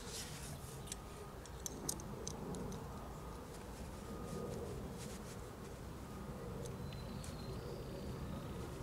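Faint light clicks and taps of small metal parts handled in the fingers as a 96-10 rotary hook shuttle is fitted into its hook body, over a steady low background hum.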